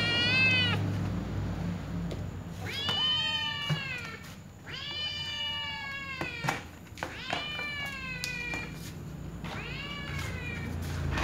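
Domestic cat meowing: about five long, drawn-out meows one after another, each rising then falling in pitch, with short pauses between.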